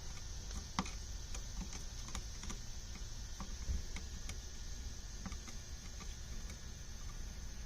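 Scattered light clicks and ticks, irregular and a dozen or so over several seconds, from small metal parts and tools being handled on a motorcycle carburetor rack, over a steady faint hiss.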